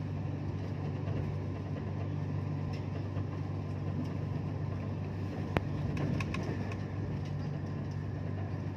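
Steady low rumble of a moving passenger train heard from inside the carriage, with one sharp click about five and a half seconds in.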